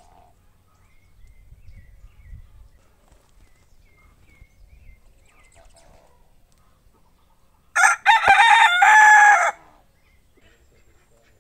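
A rooster crowing once, loud and about two seconds long, near the end; faint bird chirps are heard before it.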